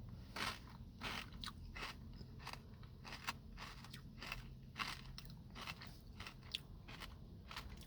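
Close-up chewing of a mouthful of ice cream with crisp Chex cereal pieces in it, the pieces crunching in many small, irregular crackles.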